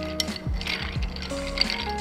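Bar spoon stirring ice cubes in a glass, a quick rattling clink of ice against glass in short spells. Background music with a steady beat plays under it.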